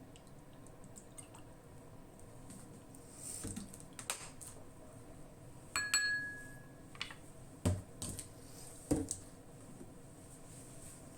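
Kitchen utensils and dishes being handled during cooking prep: a few scattered knocks and clicks, one of them, about halfway through, a clink that rings briefly like metal or ceramic.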